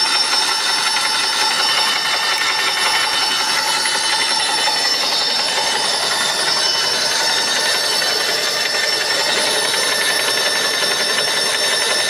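Tsuzumi X25 electric airless paint sprayer running steadily, its motor and piston pump going as fluid is pumped out through the drain valve.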